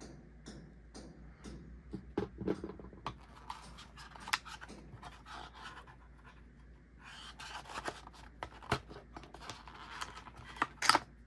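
Hands rummaging through camera accessories in a hard-shell case: scattered clicks, taps and rustling of small plastic parts and cable against the compartment dividers, with a few sharper knocks, the loudest near the end.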